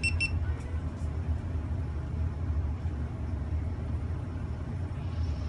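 GoPro Hero4 Black camera giving short high start-up beeps as it powers on, right at the start, over a steady low rumble.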